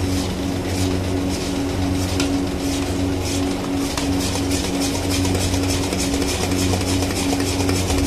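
Long metal ladle scraping and stirring thick Mysore pak mixture in a steel kadai, in quick repeated strokes, over a steady low mechanical hum.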